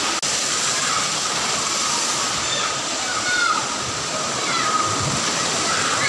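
Small forest waterfall cascading over boulders: a steady, full rush of falling water close by, with a momentary break in the sound just after the start.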